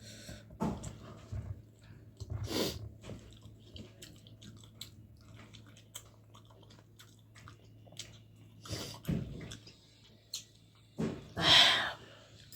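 Someone eating a meal: chewing and crunching with scattered small clicks over a faint steady low hum. A loud, short rush of noise near the end is the loudest sound.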